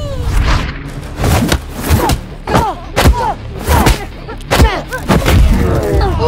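Dubbed fight sound effects for a staged punch-up: about a dozen punch and impact thuds, roughly two a second, many followed by a short tone falling in pitch.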